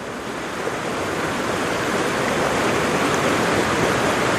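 A steady rushing hiss with no tune or beat, swelling in over the first second and then holding even.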